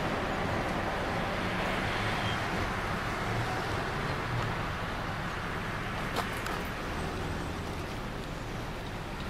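Narrow-gauge electric railcar 411 903-8 running along its track: a steady running noise of wheels and motors, with one sharp click about six seconds in.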